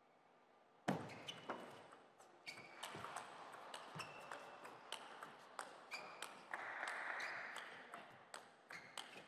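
Table tennis rally: a plastic table tennis ball clicking off the paddles and pinging on the table top in a quick, irregular run of hits. The rally sounds start abruptly about a second in, and a brief rush of noise comes a little past halfway.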